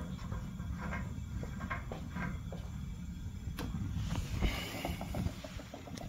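Light handling noises from the gas heater's control knob being taken apart: a few scattered small clicks and knocks, with a brief rustle about four seconds in, over a low steady background rumble.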